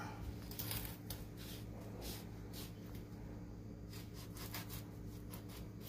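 Faint scraping and rubbing as a baked Salvadoran rice quesadilla is handled and worked loose in its baking pan, a run of short soft strokes over a steady low hum.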